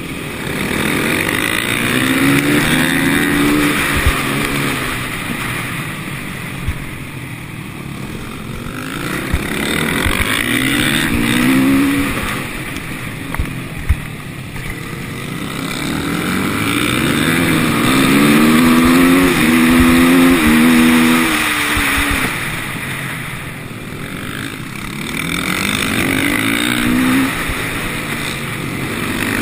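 KTM 450 SMR's single-cylinder four-stroke engine, recorded on a helmet camera, revving up hard and dropping back again about four times as the bike accelerates out of corners and brakes into the next. A steady rushing noise runs underneath, with a few sharp knocks.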